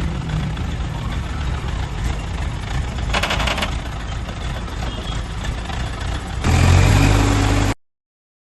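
Truck engine running steadily. About three seconds in there is a brief hiss. From about six and a half seconds the engine note grows louder and deeper, then the sound cuts off abruptly.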